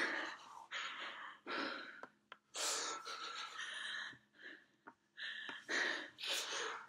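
Crying: sobbing, gasping breaths coming in short uneven bursts, one every half second to a second.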